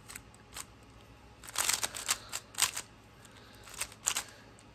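GAN 12 Maglev speedcube being turned by hand: short, irregular plastic clicks and clacks of its layers snapping round, with a quick flurry of turns about one and a half seconds in.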